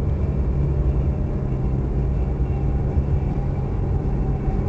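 Steady low rumble of a car driving at road speed, heard from inside the cabin: engine and road noise.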